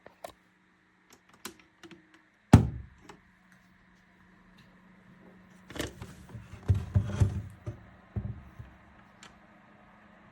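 Handling knocks: one loud thump about two and a half seconds in, then a cluster of knocks and rattles from about six to eight seconds, with scattered small clicks before them. A faint steady low hum sits underneath.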